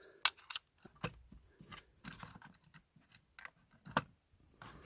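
Hard plastic LEGO elephant body and leg pieces clicking and knocking as they are handled and pressed together by hand. The clicks are sharp and scattered, with the loudest about four seconds in.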